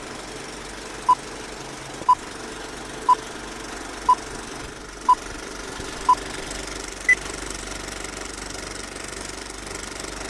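Film countdown leader sound effect: a steady film projector rattle with a short beep every second, six times at one pitch, then a single higher beep about seven seconds in.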